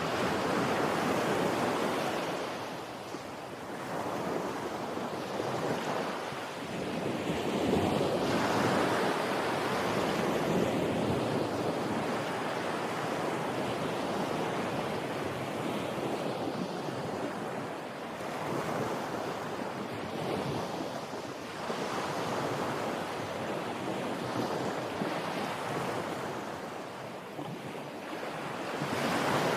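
Ocean waves breaking on a beach: a steady wash of surf that swells and eases several times, loudest around a third of the way in and again at the very end.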